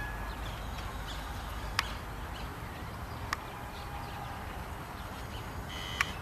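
Open-air ambience with a steady low rumble, a few short bird chirps, and three sharp clicks: two about a second and a half apart, and a third near the end.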